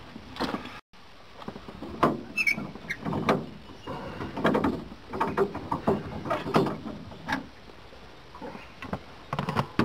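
Handling noise on an aluminium boat: rustling of a wet fish sling and irregular knocks and bumps as a large catfish is lifted in it, with a short squeak about two and a half seconds in. The sound cuts out completely for a moment just under a second in.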